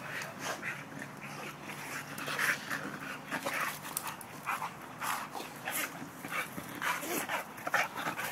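Two pit bulls rough-housing in play, their breathing and short vocal noises coming in quick, irregular bursts.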